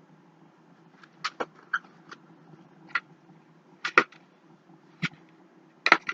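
Scattered short clicks and taps of packaging and collectibles being handled, about ten in all, the loudest pair about four seconds in and another pair near the end.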